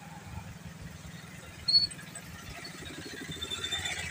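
Motorcycle engine running steadily, with one brief high squeak a little under two seconds in.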